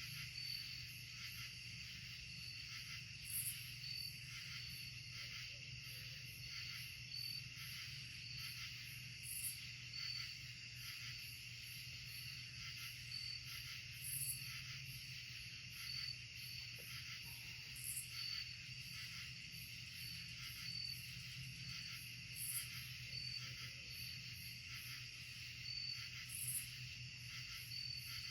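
Night insect chorus of crickets and katydids: steady high trilling with short chirps repeating every second or two, and a louder, higher call every four to six seconds. A faint low hum runs underneath.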